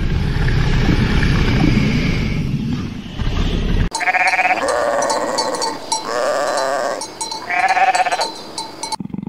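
A low rumbling noise for about the first four seconds, then alpacas calling: four short, bleat-like calls in a row.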